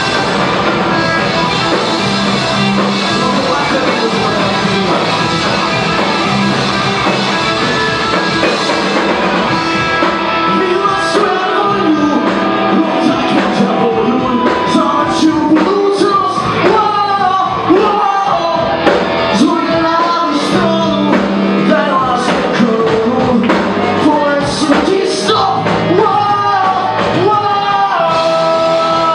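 Live rock band playing, recorded from the audience: electric guitars, bass and drums, with a male lead vocal coming in about a third of the way through.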